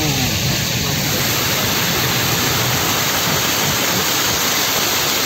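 Heavy monsoon rain: a steady, dense hiss of rain mixed with the wet road noise of a moving vehicle.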